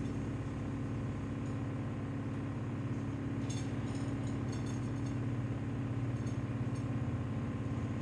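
A steady low mechanical hum runs unchanged, with a few faint light clicks about three and a half to four and a half seconds in.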